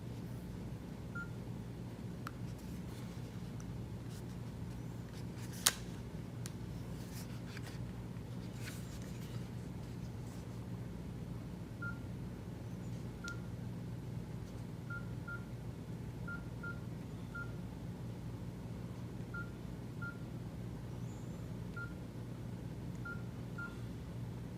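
Nokia E90 keypad tones: short single-pitched beeps, one per key press, coming irregularly and mostly in the second half, as the phone's menus are stepped through. One louder click comes about five and a half seconds in, over a low steady hum.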